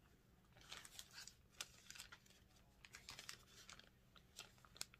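Faint handling noise: a string of light clicks and rustles as items from the box are moved about, starting about half a second in.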